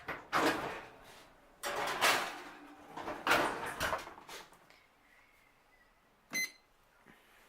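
A baking pan being put into an oven: three loud scraping, rattling rushes as the oven door opens, the pan slides onto the rack and the door shuts. About six seconds in comes a single short electronic beep from setting the timer.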